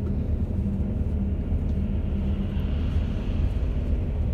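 Steady low rumble of a moving road vehicle heard from inside its cabin, engine and tyres running at a constant speed.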